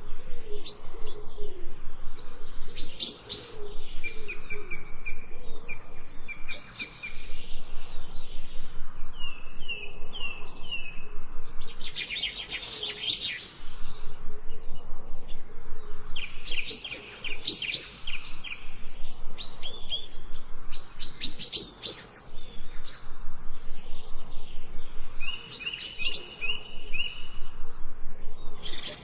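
Songbirds singing and chirping: overlapping phrases of quick high notes and trills, broken by short pauses.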